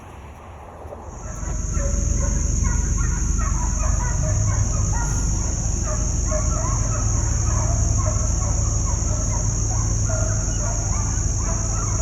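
A pack of deer hounds baying and bawling on a running deer, many overlapping cries, coming in about a second in over a steady low engine rumble and a steady high-pitched whine.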